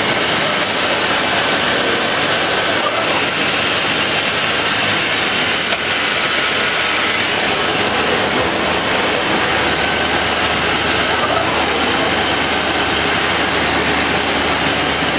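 CNC panel drilling machine running, its drill head moving over a board with a steady mechanical noise and a faint whine that comes and goes. Behind it is the constant din of a busy exhibition hall with background voices.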